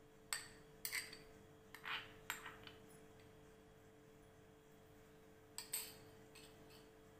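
Light clinks and taps of a spoon against a glass bowl as grated radish is scraped out into the curd: a quick cluster in the first three seconds and two more near the end.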